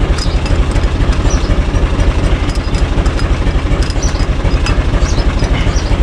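Universal U445 DT tractor's diesel engine idling steadily with an even, rapid beat, heard close from the driver's seat. The engine was cold-started about a minute earlier and is still warming up.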